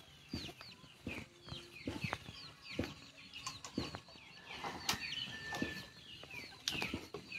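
Chickens clucking, with many short, high, falling chirps repeating throughout.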